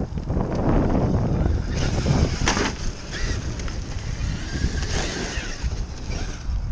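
Wind rumbling on the microphone, over which a Traxxas X-Maxx electric RC monster truck is driving on a gravel and dirt slope, its motor and tyres heard at a distance. A single sharp knock about two and a half seconds in.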